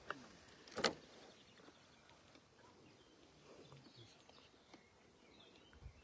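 Quiet open-air ambience with a single sharp knock about a second in.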